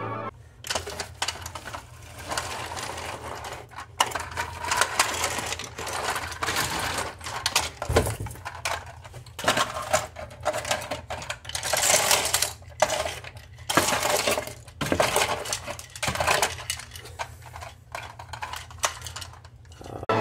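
Broken plastic toy-car pieces clattering and rattling on a plywood floor as they are handled and dropped, in irregular bursts of clicks, with a steady low hum underneath.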